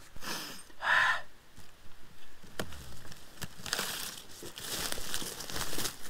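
Irregular close rustling and light crackling, with a short louder rustle about a second in and a run of small crackles in the second half.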